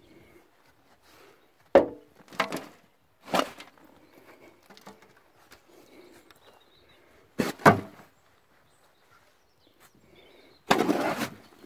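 Garden work spreading compost on a bed: a handful of sharp knocks and thuds, and a short scraping rush about eleven seconds in.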